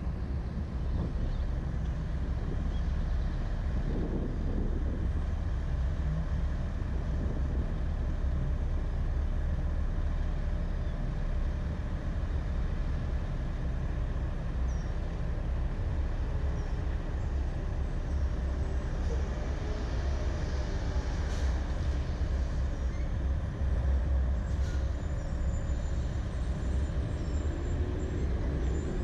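Steady low rumble of idling and slow-moving traffic, with a semi-trailer truck close ahead.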